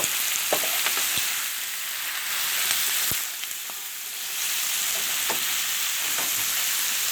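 Shrimp and steak sizzling in butter on a Blackstone flat-top griddle: a steady frying hiss, broken by several sharp clicks and pops.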